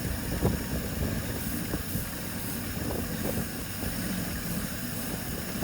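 MerCruiser inboard marine engine running steadily at idle on a flush hose, with a few light knocks, while fogging oil is sprayed into its air intake to coat the cylinders for winter storage.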